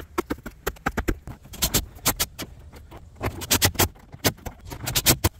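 Short bursts of rapid clicking and rattling, three or four bursts a second or so apart: a DeWalt cordless impact driver running screws into a roof grab handle.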